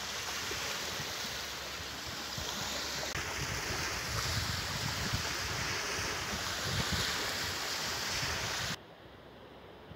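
Steady rush of wind, with low gusts buffeting the microphone. About nine seconds in it cuts off abruptly to a much quieter background hiss.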